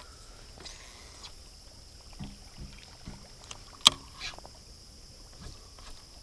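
Faint handling noise of a baitcasting reel and rod in a small aluminum boat: scattered light ticks, a few soft knocks about two to three seconds in, and one sharp click just before four seconds.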